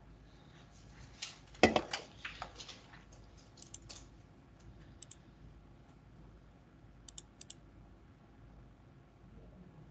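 Computer mouse clicks and keyboard keystrokes: a quick run of clicks and taps with one louder knock about two seconds in, then a few scattered clicks, including three in quick succession later on.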